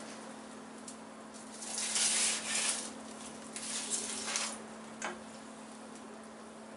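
A hot foil-lined baking pan is pulled out of the oven over the wire rack: several rasping scrapes and rustles and a small click, over a steady low hum.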